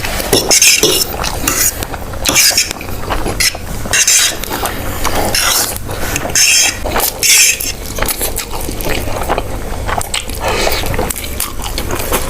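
Close-miked eating of noodles: repeated swishing slurps and chewing, with utensils clinking against a bowl.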